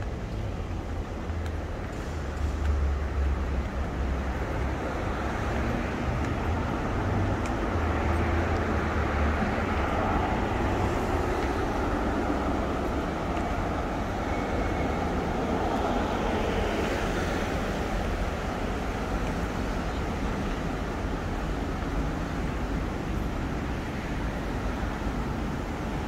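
Steady city traffic rumble, with a louder swell that builds and fades around the middle.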